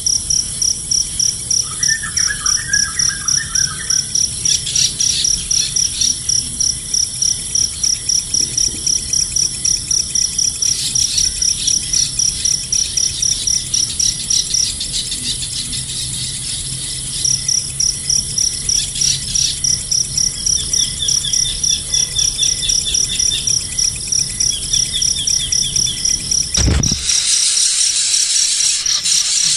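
Insect chirping in a fast, even pulse at one high pitch, pausing briefly midway, with a few short bird chirps over it. Near the end a sudden knock, then a steady hiss.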